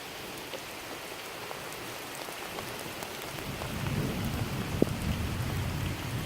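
Steady rain falling, with small raindrop ticks, and a low roll of thunder rumbling in about halfway through and growing louder toward the end.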